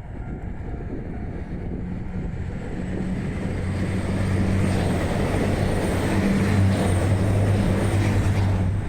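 KiHa 261 series diesel express train running, its engines giving a steady low drone over rumbling noise. It grows louder about four seconds in.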